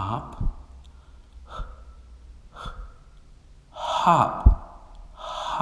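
A man's voice saying single short phonics syllables, with audible breaths and pauses between them.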